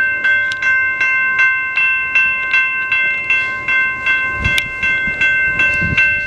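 Railroad crossing bell, a General Signals type 2, ringing steadily at about two and a half strikes a second, each strike ringing on. Two low thuds come about four and a half and six seconds in.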